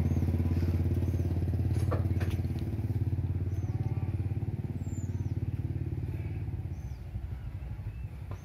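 An engine idling with a steady, even low throb, somewhat weaker in the second half.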